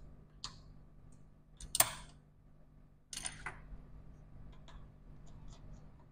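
Small metallic clicks and light clatter of a screwdriver and tiny screws being handled on an opened MacBook Pro's aluminium case and the bench during disassembly, loudest just under two seconds in and again at about three seconds. A faint steady low hum runs underneath.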